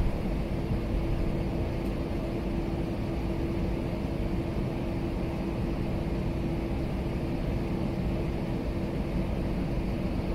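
Steady cabin noise of an airliner taxiing after landing: the engines at taxi idle, an even rumble with one constant tone.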